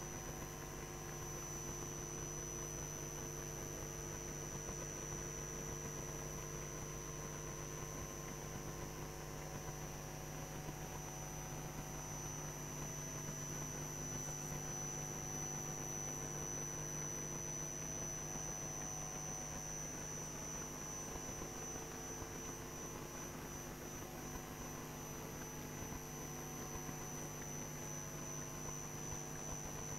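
Steady electrical hum and hiss from the chamber's open microphone and broadcast feed: a low hum with a thin high tone above it, unchanging throughout.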